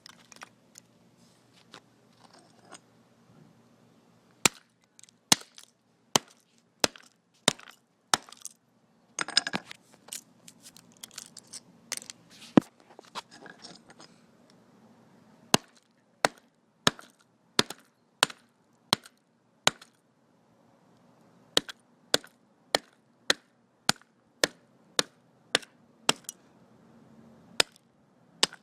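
Repeated sharp blows smashing an old plastic calculator, coming in runs of one or two a second with a short pause about two-thirds of the way through. A crackle of breaking pieces about nine seconds in.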